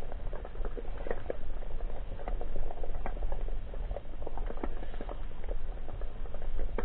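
Underwater ambience recorded through an action-camera housing: a dense, irregular crackle of small clicks over a steady low rumble.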